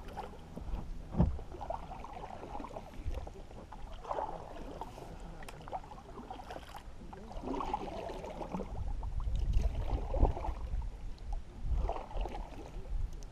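Paddle strokes in shallow marsh water from a small boat: a watery swish every two or three seconds, with a few sharp knocks, and a low rumble underneath.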